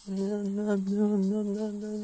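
A man humming one long, low note, held nearly level in pitch.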